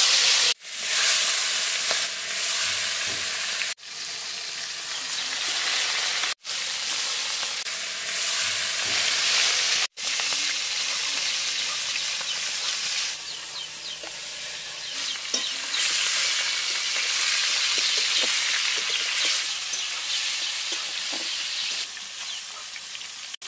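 Whole climbing perch frying in hot oil in a metal wok: a loud, steady sizzle, loudest at the start as the fish go in, with light spatula scrapes as they are turned. The sound cuts out for an instant four times in the first ten seconds.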